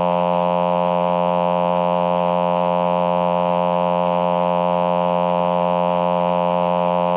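Roland VP-330 vocoder synthesizer's male human-voice choir sound holding one steady, unchanging tone.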